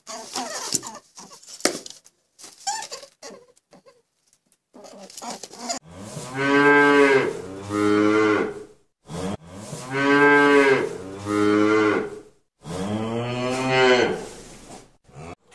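Cattle mooing: five long moos, starting about six seconds in and coming as two pairs and a last single call. Before them, a few seconds of short scattered clicks and rustles.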